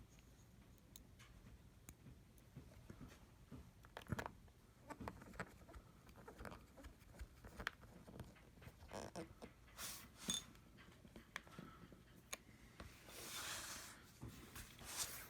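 Faint scattered clicks and light taps of small-part handwork on a laptop, with a brief rustling rub about two seconds before the end.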